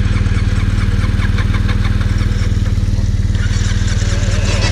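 BMW R1200GS flat-twin engine idling steadily, with an even low pulse.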